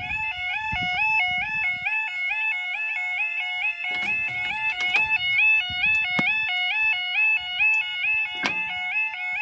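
Level crossing warning alarm sounding: a loud two-tone warble that keeps stepping rapidly between a lower and a higher pitch. A few sharp knocks sound under it about halfway through and again near the end.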